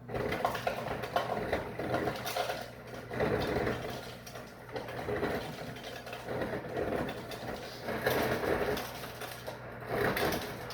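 An electric dispenser filling a cup for iced tea. It starts suddenly and runs with a steady electric hum under an uneven pouring and rattling noise.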